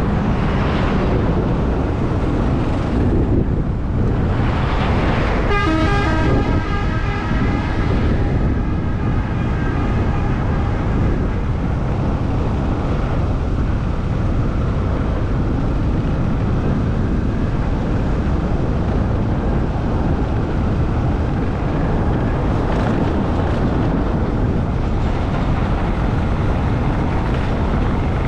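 Steady road and wind rumble from a moving vehicle. About five seconds in, a vehicle horn sounds for about two seconds.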